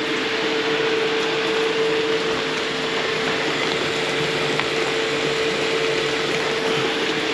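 Water running steadily through the plumbing into a freshly cleared drain: an even rushing hiss with a steady whistling tone through it.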